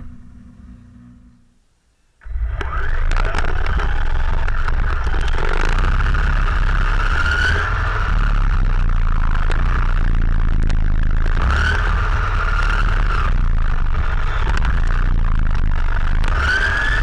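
Radio-controlled race car's motor running at speed, heard through the camera's waterproof case on the car's body: a whine that rises and falls several times with the throttle, over a steady low rumble. It starts near silent and cuts in about two seconds in.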